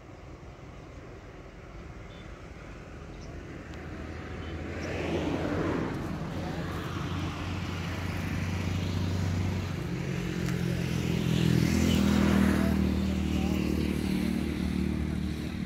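A motor vehicle's engine running, growing louder about four seconds in and loudest around five and twelve seconds in, as if passing close by.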